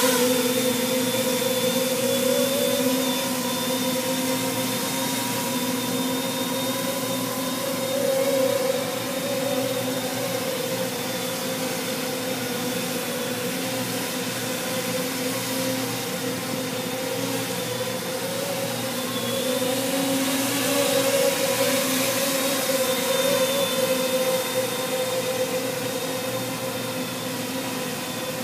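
Custom-frame quadcopter's four electric motors and propellers buzzing in flight, a steady multi-pitched whine that wavers a little and swells now and then as the throttle changes.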